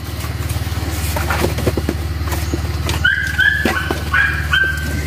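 A dog whining in a run of short high-pitched cries starting about three seconds in, over the steady hum of an idling engine, with scattered knocks of coconuts being handled.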